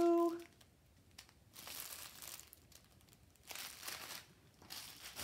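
Small plastic bags of diamond-painting drills crinkling in three short bursts of rustling.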